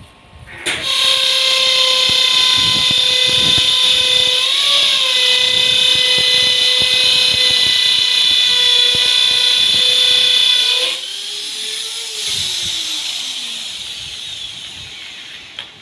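A corded handheld electric power tool on wood, its motor running at high speed with a steady high whine. It sags briefly about five seconds in, as the tool is pressed into the wood. Near eleven seconds it is switched off and the whine falls in pitch as the motor spins down.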